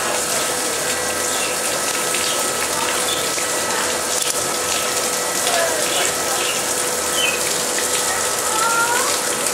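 Steady rush of water pouring into a small pond, with a faint steady tone underneath and a few short chirps, the clearest near the end.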